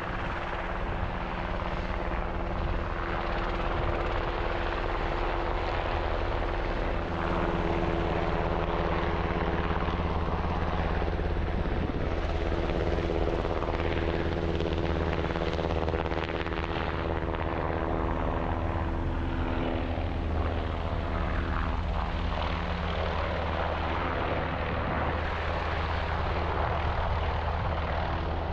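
Helicopter running steadily, a constant engine whine over a deep rotor hum.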